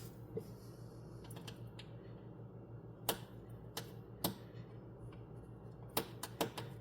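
Scattered sharp clicks and taps, about ten in all and irregularly spaced, over a steady low hum.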